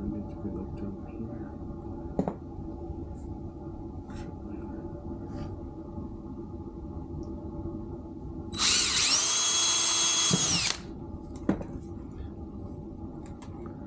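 Cordless DeWalt drill boring a small hole through PVC pipe. About eight and a half seconds in, the motor spins up with a rising whine, runs steadily for about two seconds, then stops abruptly. A few light knocks of handling come before and after.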